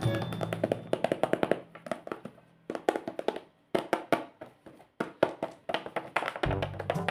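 Background music fading away, followed by a string of sharp taps and clicks at uneven spacing; music with a bass line comes back near the end.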